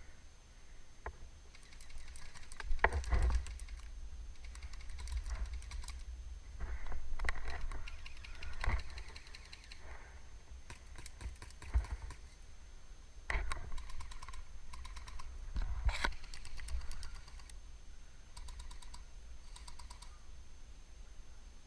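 Airsoft guns firing: short bursts of rapid, evenly spaced clicking shots and scattered single cracks, over a low rumble of wind or handling on the microphone.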